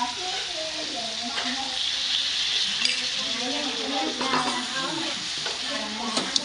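Chicken wings frying in hot oil: a steady sizzle, with a few light clicks of a utensil against the pan.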